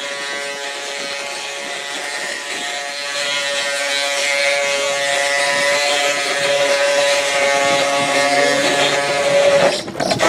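Ox cart (carro de boi) singing: the wooden axle turning in its wooden bearing blocks as the solid wheels roll gives a loud, steady, high whining drone with many overtones. Near the end it breaks off briefly and comes back at a lower pitch.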